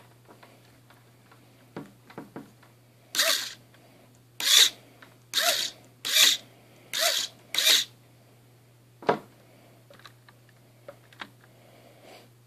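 Small electric motors of a scale-model 1966 Impala lowrider's working suspension whirring in six short bursts, each about half a second long, with its pitch rising and then falling. A few light clicks come before the bursts, and one knock follows them.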